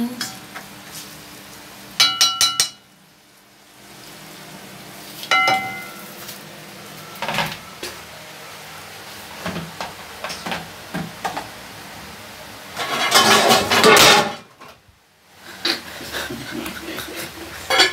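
Kitchen clatter of metal pots and utensils: a quick run of ringing clinks about two seconds in, another ringing clink a few seconds later, scattered knocks, and a longer, louder clatter about three-quarters of the way through.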